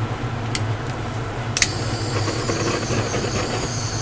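Handheld butane torch clicking on about a second and a half in, then a steady hiss of its flame. A steady low hum runs underneath.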